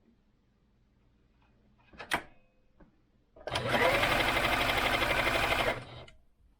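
Singer Advance 7422 electronic sewing machine, tested for its bobbin-winding error, running at speed for about two and a half seconds. Its pitch rises as it spins up, then it stops. A sharp click comes about two seconds in, before it starts.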